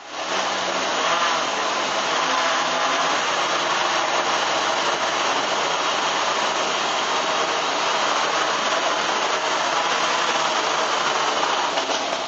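Four 2213 brushless motors spinning 10x4.7 propellers on a scratch-built quadcopter: a loud, steady whirring drone that starts sharply, holds for about twelve seconds and cuts off just at the end. It is run on a battery that is pretty well depleted.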